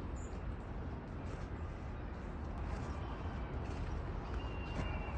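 Steady low outdoor background noise with a few faint clicks and a brief thin high tone near the end.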